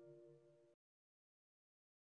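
Faint tail of background music: a held string chord dying away, then cutting off suddenly into silence under a second in.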